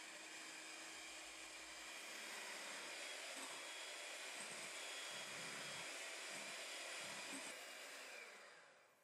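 Electric hand mixer whirring steadily, its beaters whipping egg whites and sugar into meringue, then winding down and stopping near the end.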